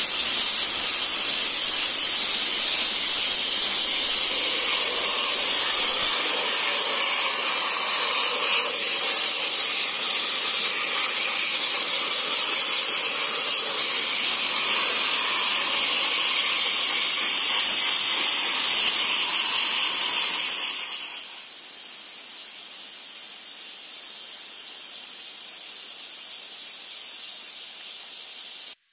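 Homemade sandblaster nozzle blasting sand with high-pressure compressed air against a steel motorcycle frame, stripping paint and body filler: a very noisy, steady hiss. About 21 s in it drops to a quieter hiss.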